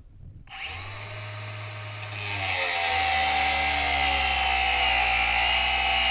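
Milwaukee M18 Fuel brushless cordless angle grinder with a cutoff wheel starting up about half a second in and spinning freely. About two seconds in it bites into 1-inch by 1/8-inch steel angle iron: the motor's whine drops a little in pitch under load, and a louder grinding of abrasive wheel on steel joins it.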